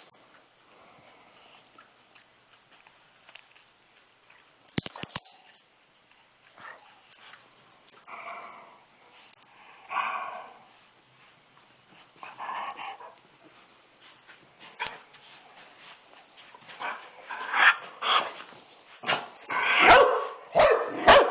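Dog barking in short, separate barks. It is quiet for the first few seconds, with a couple of sharp clicks about five seconds in. The barks are sparse at first and come quicker and louder over the last few seconds.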